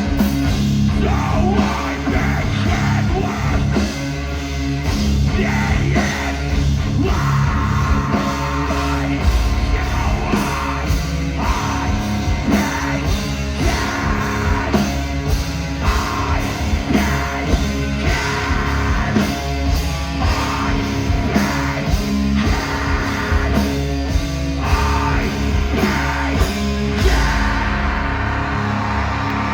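Metalcore band playing loud and live: distorted guitars, bass and pounding drums, with yelled vocals.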